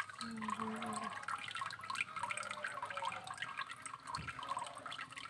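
Water trickling and dripping into a small fish tank, a steady irregular patter of drops.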